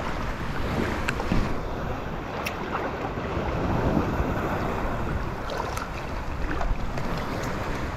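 Wind buffeting the microphone over small waves lapping in shallow water: a steady rushing noise with a few faint splashes and clicks.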